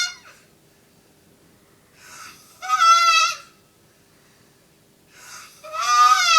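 A man snoring in his sleep. About every three seconds comes a short breathy rasp, then a high-pitched, wavering squeal lasting under a second. There are two full snores, with the tail of another at the very start.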